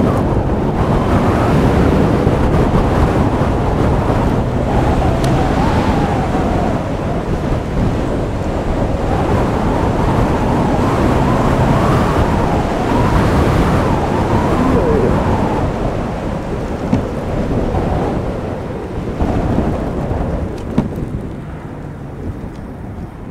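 Heavy wind rushing over the microphone of an electric motorbike ridden at speed, dying down over the last few seconds.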